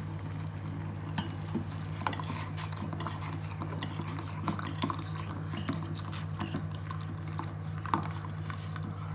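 Light irregular clicks and taps, like kitchen utensils being handled, with a few sharper knocks. A steady low hum runs underneath.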